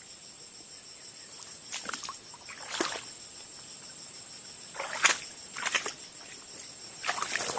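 Hooked snakehead fish splashing at the water surface several times as it is fought in, over the steady high drone of insects.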